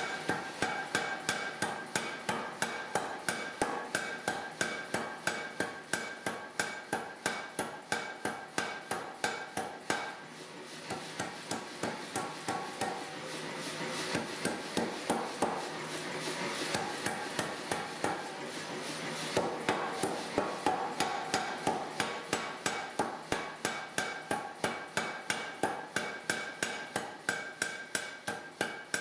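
Power hammer striking a glowing steel bar between its dies in a rapid steady train of blows, about three a second, with a faint ringing from the steel. The blows ease off briefly twice as the bar is repositioned.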